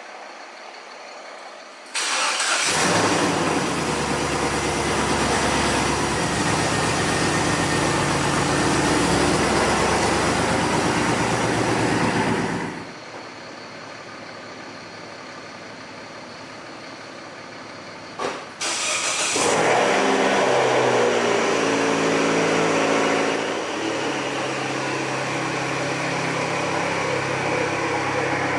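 A car engine starts and runs for about ten seconds, then shuts off. After a click, a car engine starts again and runs on, easing down a little in level to an idle.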